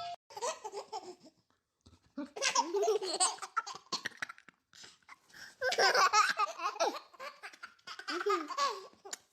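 A baby laughing hard in four fits, with short pauses between them.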